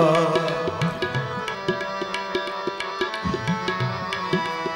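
Tabla and harmonium playing a short instrumental interlude between sung lines of Sikh kirtan. The harmonium holds steady chords under a stream of tabla strokes, and some of the low bass-drum strokes bend in pitch.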